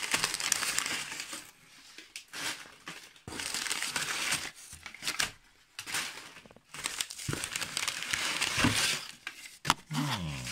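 Crumpled newspaper packing rustling and crinkling as a hand rummages through it in a cardboard box, in several bursts of one to three seconds with short pauses between.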